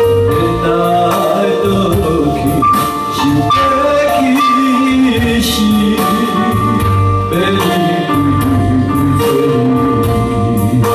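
Electronic keyboard playing a song's accompaniment with sustained chords and a steady backing rhythm, with a man singing over it through a microphone.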